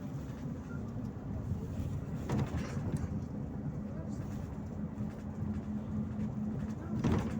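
Cabin sound of a Volgabus-5270.G2 city bus on the move, running on compressed natural gas: a steady low engine and road rumble, with a couple of short knocks or rattles, one about two and a half seconds in and one near the end.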